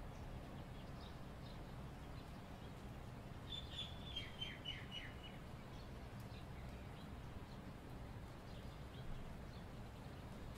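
A short run of high chirps, about half a dozen quick falling notes, around four seconds in, over a steady low hum.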